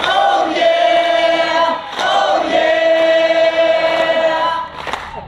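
An audience singing along in unison: two long held notes, the second longer, dropping away shortly before the end.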